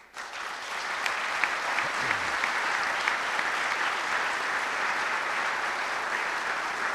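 Audience applauding: clapping that builds within the first second and then holds steady.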